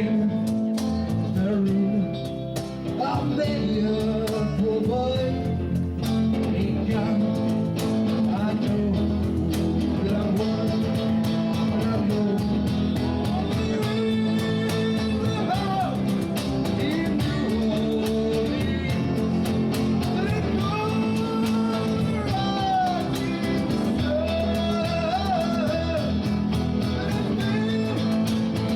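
Live rock band playing an instrumental passage of a slow song, with a lead line bending in pitch over the band.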